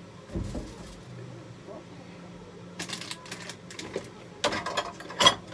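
Kitchen items being handled and moved about on a shelf and dish rack: scattered clicks, light knocks and rustling of packaging, with a low thump about half a second in and a busier cluster of clatter near the end.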